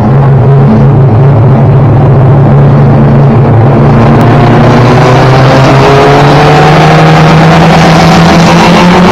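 A 1992 Toyota Celica GT race car's four-cylinder engine heard from inside the cockpit. It runs steadily at low revs, then slowly climbs in revs from about four seconds in.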